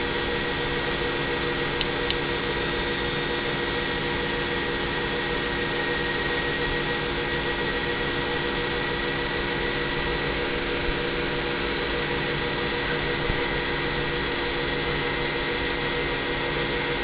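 Small airplane's engine idling, heard steadily inside the cockpit as an even hum with several fixed tones.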